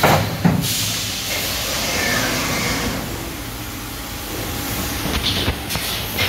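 Trumpf TubeMatic 5000 laser tube cutting machine running: a steady, broad machine hiss over a low hum, with a few sharp knocks at the start and again near the end.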